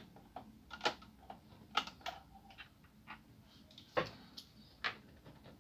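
Irregular light clicks and taps of a screwdriver and small screws being worked out of an Asus K53SD laptop's plastic case, with sharper knocks about a second, two seconds, four seconds and five seconds in.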